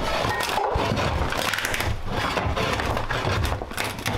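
Metal shovel scraping across a soiled floor and prying up a piece of rotted flooring, with steady irregular scraping and crunching of debris.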